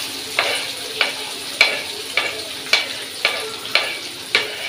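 Finely chopped onion sizzling as it falls into hot oil in a frying pan, with a spoon knocking against a wooden chopping board about twice a second as the onion is scraped off into the pan.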